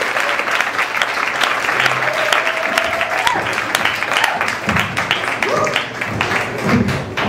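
Audience applauding, dense clapping with a few voices calling out over it.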